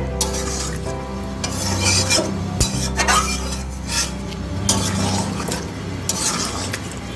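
Chicken pieces being stirred and scraped around a cooking pan with a utensil, in irregular strokes, over a light sizzle as the meat cooks in its own released juices.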